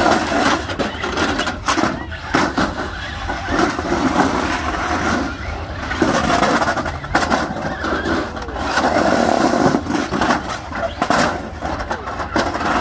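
Radio-controlled cars driving and ramming each other and the wooden plank walls of the arena, with repeated sharp knocks of the collisions over the whirr of their drive motors.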